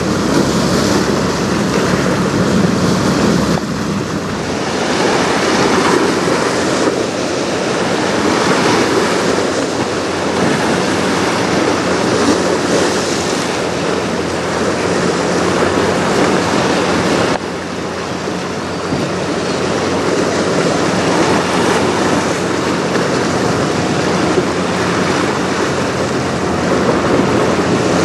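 Wind blowing on the microphone over choppy river water, with waves washing and a low steady hum underneath.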